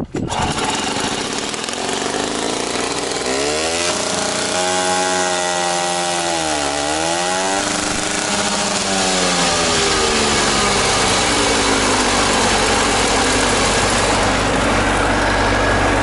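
The two-stroke pony starter engine of a 1984 Soviet T-40 tractor runs loudly, its pitch wavering and sagging as it cranks the tractor's air-cooled diesel. About ten seconds in, the diesel catches and a steady low idle sets in under the starter's noise.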